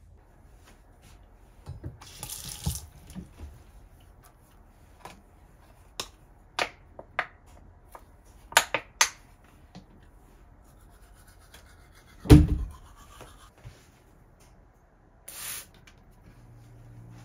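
Household handling sounds at a bathroom washbasin: a short rush of water about two seconds in, a series of small clicks, and one loud knock about twelve seconds in. Near the end a spray bottle gives one short spritz onto the mirror.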